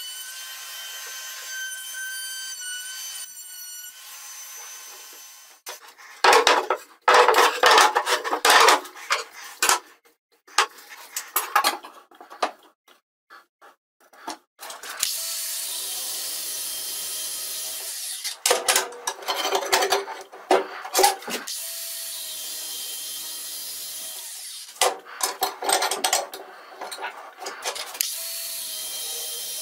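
Power tools working wood and then metal: loud rasping bursts of a tool cutting wood in the first part. From about halfway, a cordless DeWalt angle grinder runs with a steady high whine and turns harsher in repeated bursts as its disc cuts through steel rods clamped in a vise.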